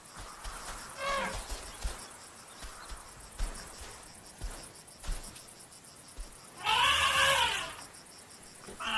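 Young desert elephant calling: a short high call about a second in, then a louder, longer call that rises and falls in pitch near the end. It is the contact call of a young bull left behind by his herd.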